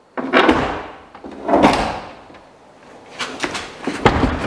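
Nissan Hardbody mini truck's door being opened by pulling a wire in place of its missing handle: two long metal scrapes, then a run of sharp clicks and knocks from the latch and door.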